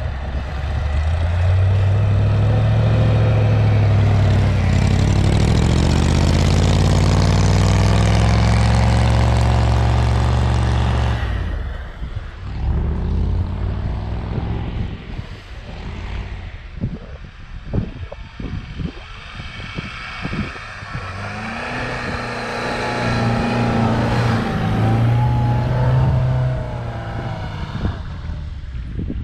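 An off-road 4x4's engine revving hard under load, its pitch climbing for about ten seconds, then cutting off abruptly. A run of knocks and clatter follows, then the engine revs up again for several seconds near the end.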